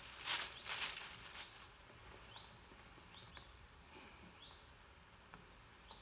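Rustling for the first second and a half, then quiet woodland ambience with a few faint, short bird chirps.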